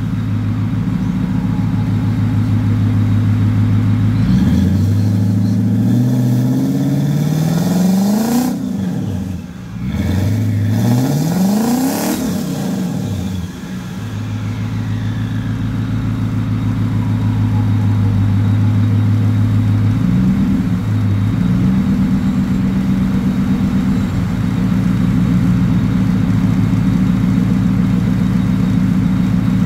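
Turbocharged Infiniti Q45 V8 with a GT45 turbo, running steadily and revved up twice, about four and ten seconds in. Each rev climbs in pitch, then drops back with a short hiss as the throttle closes, and the engine settles to a steady run again.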